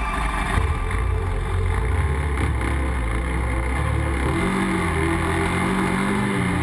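ATV (quad bike) engine running, its pitch rising and falling with the throttle in the last couple of seconds.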